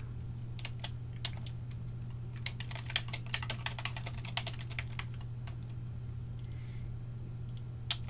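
Typing on a computer keyboard: a few separate keystrokes, then a quick run of keys lasting about two seconds, and a single click near the end, over a steady low hum.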